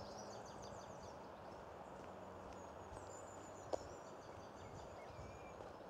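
Faint songbird song from a goldfinch and a wren: high twittering notes and trills over quiet outdoor background noise, with one short sharp click a little under four seconds in.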